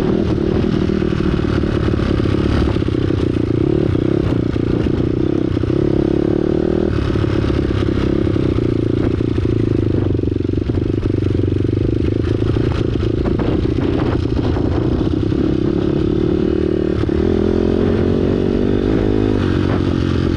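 2009 Honda CRF250R single-cylinder four-stroke dirt bike engine running under way on the trail, its pitch shifting with the throttle and climbing near the end. Knocks and scraping from the bike over rocks and brush come through throughout.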